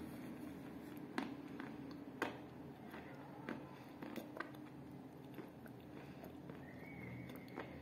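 Chewing a mouthful of chalk pieces in kaolin clay: a handful of irregular, sharp crunches spread over several seconds.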